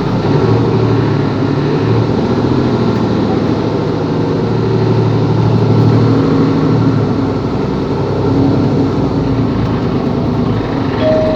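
Diesel engine of a Mercedes-Benz Capacity L articulated city bus running while driving, its note rising and falling. A short beep about eleven seconds in.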